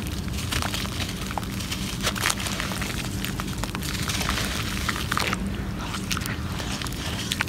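Lumps of damp red dirt cracking and crumbling in the hands, with many small crackles, and crumbs dropping into a clay pot of water.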